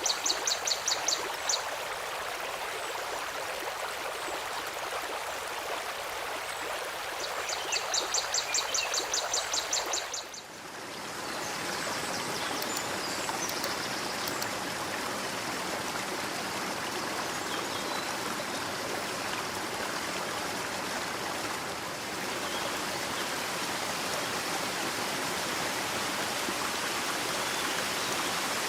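Steady rushing water of a stream, with a small bird's rapid high trill twice in the first ten seconds. About ten seconds in the water sound briefly dips and then goes on fuller and lower.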